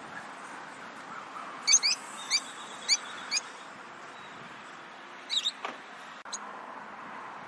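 Lovebirds chirping: short, sharp high chirps in small clusters, a run of them about two to three and a half seconds in and another brief burst a little past five seconds, over a steady low hiss.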